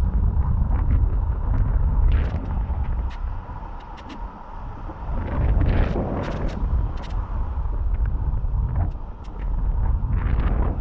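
Strong sea wind buffeting the microphone in gusts: a heavy rumble that swells and eases, with scattered crackles.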